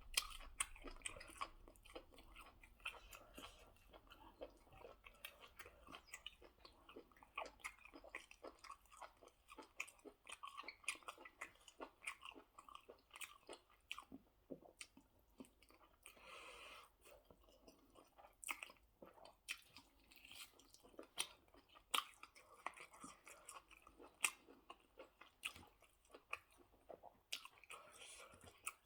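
Faint close-up chewing of rice and goat stew: an irregular run of soft mouth clicks and smacks, with no pause longer than a moment.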